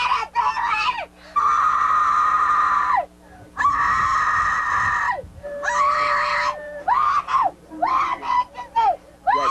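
A person screaming in pain: two long, held, high-pitched screams of about a second and a half each, then a shorter one, between quick rising-and-falling cries. The cries of a napalm burn casualty.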